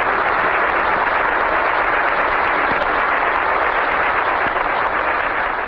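Audience applauding steadily after an operatic tenor aria, beginning to fade near the end.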